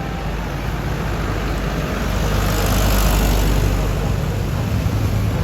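A bus driving past: engine and tyre noise swells to its loudest about three seconds in, then eases slightly.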